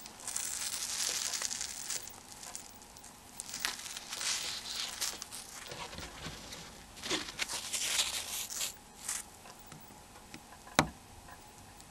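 Small plastic mobile-phone parts being handled during disassembly: irregular dry rustling and scraping, with a few light clicks and one sharper click near the end.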